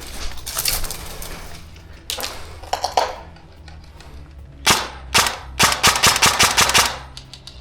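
Airsoft guns firing: scattered shots in the first few seconds, then a rapid string of sharp shots near the end.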